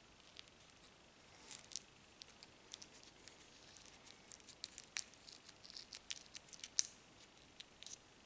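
A fingertip pressing into and working a thick, gritty cleanser paste with popcorn pieces in it, inside a small pot: faint scattered crackles and soft clicks, busiest from about one and a half to seven seconds in.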